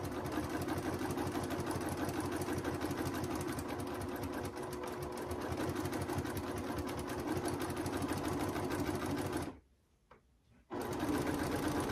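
Sewing machine running steadily, stitching a quarter-inch seam through layered quilting fabric. It stops for about a second near the end, then starts stitching again.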